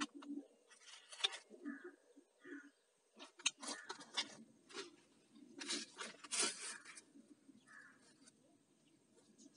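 Handling noise from fitting a chainsaw bar attachment to an angle grinder: short clicks and clatter of metal parts, mixed with rustling of plastic sheeting, in three bursts about a second in, around four seconds in and around six seconds in.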